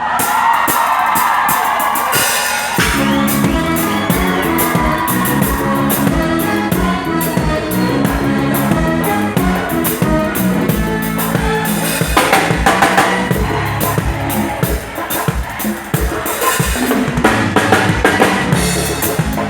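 A live band playing a song, with drum kit (kick and snare) and bass carrying a steady beat.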